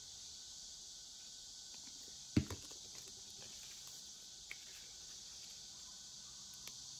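Quiet handling of folded paper while glued origami pieces are pressed together, with one sharp knock about two and a half seconds in and a few faint ticks, over a steady high hiss.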